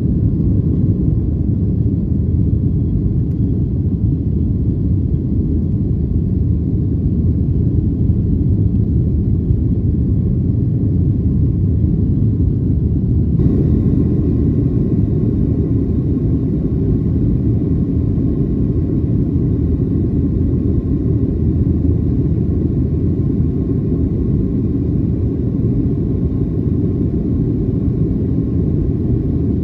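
Boeing 737-800's CFM56-7B engines and airflow heard from inside the cabin during the climb after takeoff: a steady low roar. About halfway through, the sound abruptly gets brighter and hissier, with a faint steady whine added.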